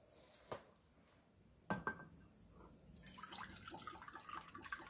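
A single knock, then soy sauce poured from a bottle into a small stainless-steel cup, trickling and glugging from about three seconds in.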